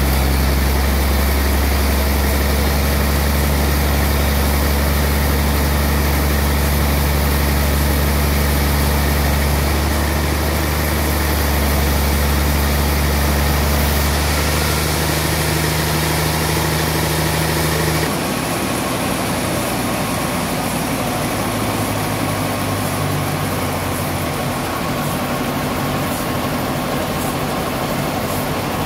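Large sawmill band saw running with a loud, steady low drone while sawing a trembesi (rain tree) log. About 18 seconds in, the sound changes abruptly to a quieter, rougher machine noise.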